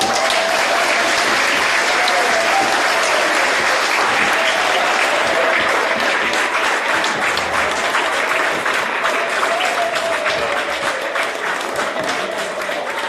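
Audience applauding: dense clapping that starts abruptly and eases slightly near the end.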